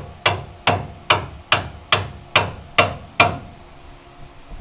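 Hammer tapping a bolt into the rear trailing-arm mount of a 1967 Porsche 911: a run of about nine sharp, evenly spaced taps, about two and a half a second, each ringing briefly. The taps stop a little after three seconds in.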